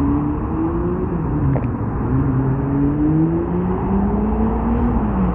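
Traffic on a multi-lane city road: cars and minibuses driving past over a steady low rumble, their engine pitch rising as they accelerate, then dropping away near the end.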